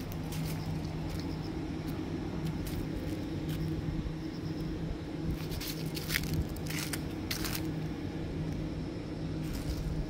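Footsteps on paving scattered with dry fallen leaves, with short crackles of leaves underfoot about halfway through and again near the end, over a steady low hum.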